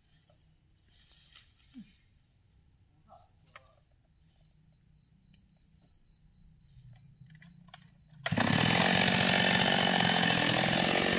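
A faint steady high whine and a low hum with a few small clicks, then, about eight seconds in, a mini chainsaw suddenly opens up to full throttle and runs loud and steady.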